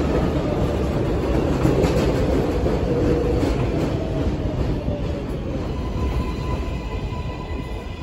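New York City subway train moving along an elevated station platform, its wheels rumbling on the rails. A tone falls in pitch around the middle, and a steady high tone comes in over the last couple of seconds.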